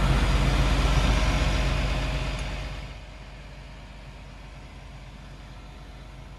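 Excavator's diesel engine running steadily with a low rumble, which fades down about two to three seconds in to a much quieter steady hum.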